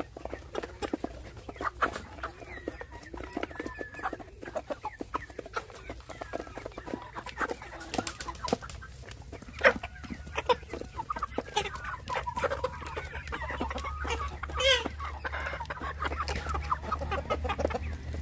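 A flock of chickens clucking as they feed, with many quick taps of beaks pecking grain from a plastic tray feeder. One louder squawk stands out near the end.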